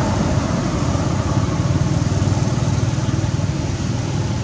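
Steady low rumble of road traffic, with motorbike engines passing on the road.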